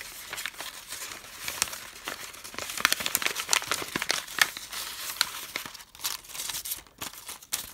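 A sheet of paper, its top cut into strips, rustling and crinkling in close-up as hands roll it into a tube, in a dense run of irregular crackles with a short lull near the end.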